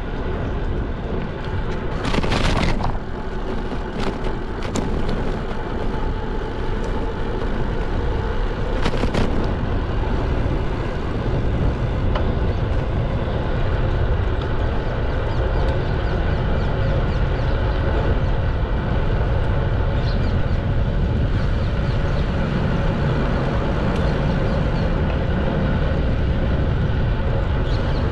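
Wind buffeting the microphone and tyre noise from a road bicycle riding on asphalt: a steady low rush, with a brief sharper burst about two seconds in.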